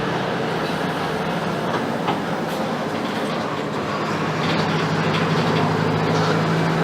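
Mercedes-Benz OF-1721 BlueTec 5 city bus driving, its front-mounted diesel engine humming under the road and body noise, with rattles and clicks from the bus body. About four and a half seconds in the engine gets louder and its pitch rises a little as it pulls harder.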